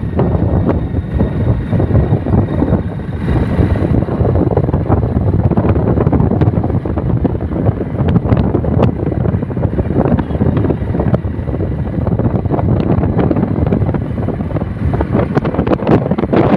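Wind buffeting the microphone over the steady rumble of a moving vehicle, with frequent small knocks and rattles.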